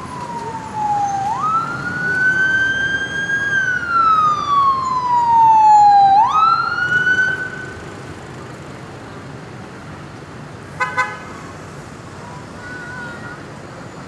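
Ambulance siren sounding a wail: the pitch falls slowly, then jumps quickly back up, twice over, growing louder to about six seconds in before it stops. Traffic noise follows, with a brief double horn honk a few seconds later.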